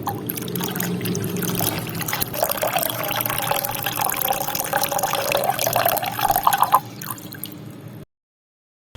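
Water pouring and trickling steadily, as from a small DIY water pump's outlet, with a wavering whine through the middle. It cuts off abruptly near the end.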